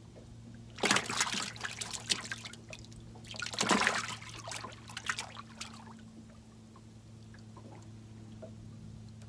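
Two short bursts of water splashing and trickling, a few seconds apart, over a steady low hum.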